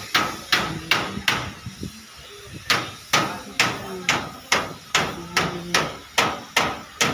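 Hammer blows on metal in a steady rhythm, about two and a half strikes a second, each ringing briefly, with a pause of about a second early on before the hammering resumes.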